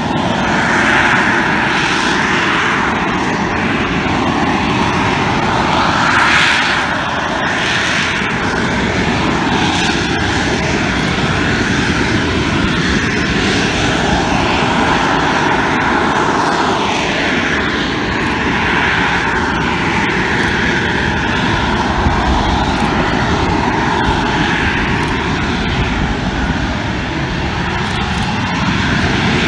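Harrier jump jet's Rolls-Royce Pegasus vectored-thrust turbofan running hard while the jet hovers with its nozzles pointed straight down. It is a loud, continuous jet roar and whine whose pitch shifts up and down now and then.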